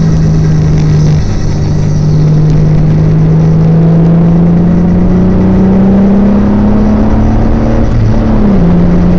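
Car engine and road noise heard from inside the cabin while driving, loud. The engine note rises slowly as the car accelerates, then drops near the end.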